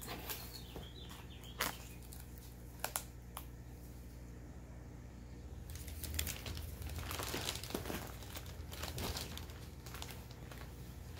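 Rustling and crinkling of shredded paper packing and a plastic bag being handled in a cardboard shipping box. A few sharp clicks come in the first three seconds, and the rustling grows denser from about six seconds in.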